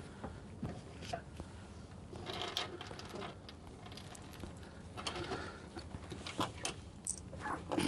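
Small clicks, taps and rustles of hands working a red butt-splice crimp connector onto a thin power wire and closing a plier-type wire stripper/crimper on it. The sharp clicks come thickest in the second half.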